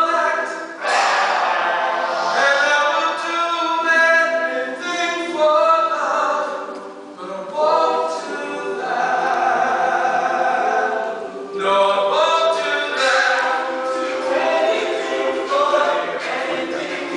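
An all-male a cappella group singing in harmony, several voices holding and moving between chords, with brief breaks between phrases. It is heard from the back balcony of a chapel.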